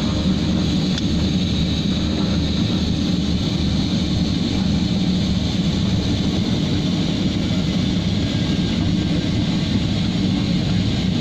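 Harbin Y-12 twin turboprop's engines and propellers running with a steady drone, heard inside the cockpit as the aircraft rolls down the runway after landing.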